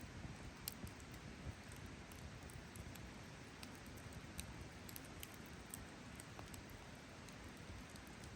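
Wood campfire burning with faint, irregular crackles and sharp pops over a low steady hiss.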